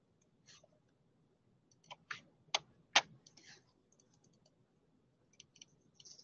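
A few sharp clicks of a computer mouse, four close together about two to three seconds in, then fainter ticks near the end.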